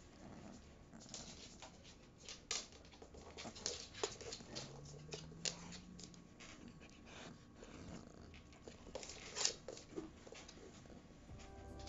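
A Presa Canario puppy being stroked and handled: soft rustles and scattered clicks of a hand moving over its fur, with a faint low rising whine from the puppy about five seconds in.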